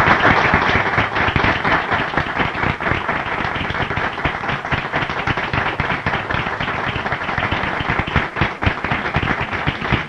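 Audience applauding, loudest at the start and then settling to a steady level.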